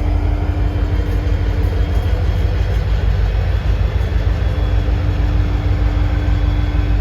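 Diesel locomotive engine running under load, a deep steady rumble strong enough to be felt in the chest. A steady hum over it fades briefly in the middle and comes back.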